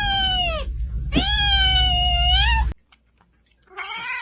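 A cat giving long, drawn-out meows: one trails off falling in pitch under a second in, a longer one rises then holds and cuts off abruptly, and another begins rising near the end.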